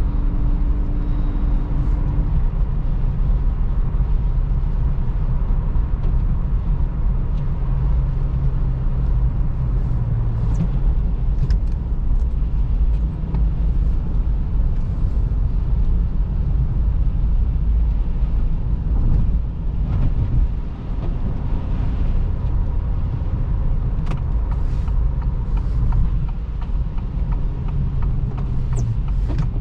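2023 Acura Integra A-Spec on the move: steady engine and tyre noise at road speed, the engine note changing pitch a few times, with a few faint clicks.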